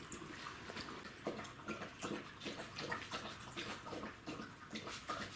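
Czechoslovakian wolfdog puppies lapping water from a freshly filled water bowl: many small, irregular wet laps and splashes.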